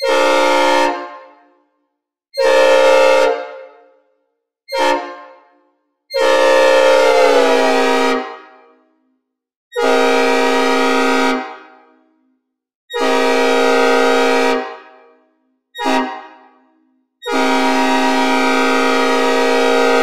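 Synthesizer recreation of a Nathan P5 'new cast' five-chime locomotive air horn, sounding eight blasts: mostly one to two seconds long, with two short toots among them. Each blast is a bright, squeaky chord that cuts off into a brief reverb tail, and on one longer blast the chord sags in pitch as it fades.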